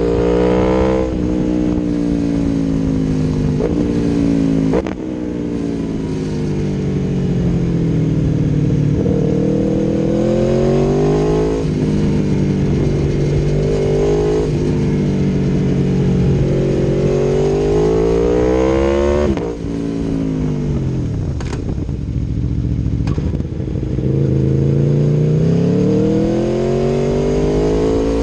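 Aprilia Tuono V4 1100 Factory's V4 engine through an Akrapovic exhaust, accelerating through the gears. The pitch climbs and drops suddenly at each shift, several times, and falls away for a few seconds about two-thirds through before climbing again.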